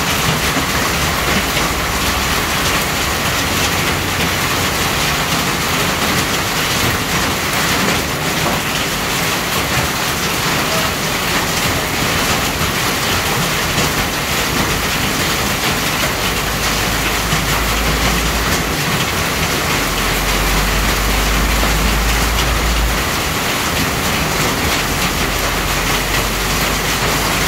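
Heavy hailstorm: a dense, steady hiss and patter of hailstones and rain falling on the ground and the shelter roof overhead. A deep low rumble joins about two-thirds of the way through.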